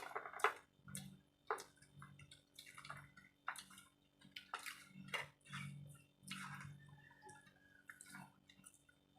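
Wet, close-up eating sounds of rice and curry being chewed: a run of soft smacks and clicks with a steady chewing rhythm.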